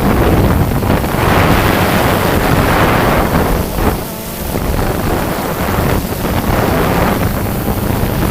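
A steady motor drone with wind buffeting the microphone, swelling between about one and four seconds in.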